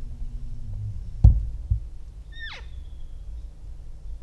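A single short elk chirp, a high squeal sliding quickly down in pitch, about halfway through. Before it come two sharp knocks, over a low rumble.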